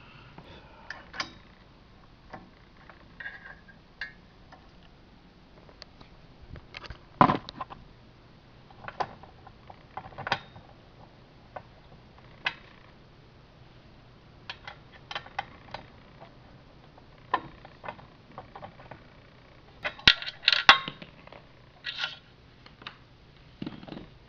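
Scattered clicks, taps and knocks of a hand tool and metal hardware being worked at a bracket on an elliptical trainer's base frame, with a sharp knock about seven seconds in and a burst of clatter near the end.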